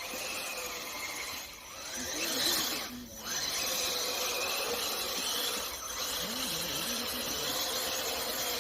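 RC car's motor and gears whining steadily as it drives on ice, with a high squeal and a scratchy hiss. It dips briefly three times.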